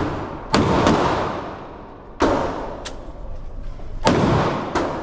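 Gunshots at a shooting range: three loud shots roughly 1.7 seconds apart with fainter shots in between, each followed by a long echoing tail.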